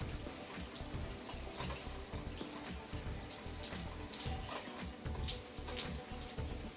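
Water running steadily from a filtered shower head, an even hiss with small scattered splashes and clicks.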